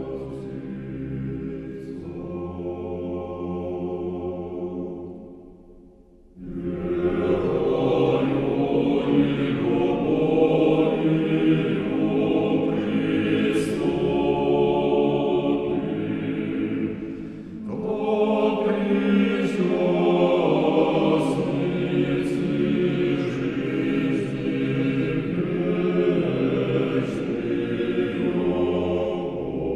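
Orthodox church choir chanting in sustained chords. The singing fades almost away about five seconds in, a new, louder passage enters about a second later, and it dips briefly near the middle before carrying on.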